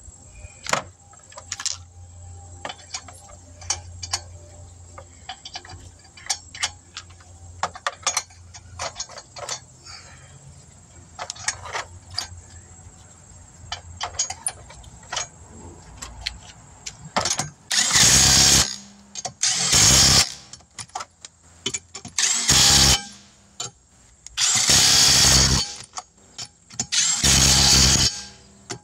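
Small metallic clicks and clinks as lug nuts are put on by hand. Then, from about two thirds of the way in, an impact wrench runs in five short bursts of about a second each, tightening the lug nuts.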